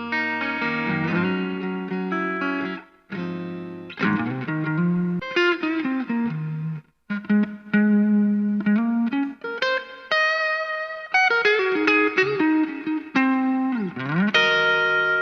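Electric Telecaster-style guitar with Fleor Alnico V pickups, played through a Vox VT20X amp. It opens with held chords, then moves to single-note lead lines with some bent notes, with two short breaks about 3 and 7 seconds in.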